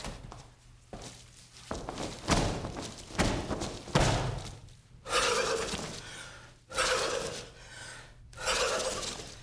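Several dull thumps, then three forceful breaths out about a second and a half apart, as in Tummo breathing practice.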